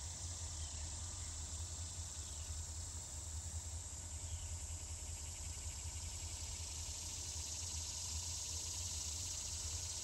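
Insects droning steadily in summer vegetation, a fine rapid pulsing that grows a little stronger in the second half, over a steady low rumble.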